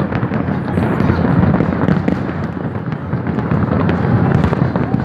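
Fireworks display: a dense, continuous barrage of overlapping bangs and crackles with no break.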